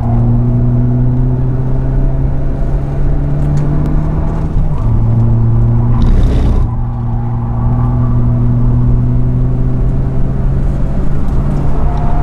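Hyundai Avante Cup race car's four-cylinder engine under full throttle, heard from inside the cabin. It rises in pitch, drops at an upshift from third to fourth gear about five seconds in, then climbs steadily again. A brief rushing hiss comes about six seconds in.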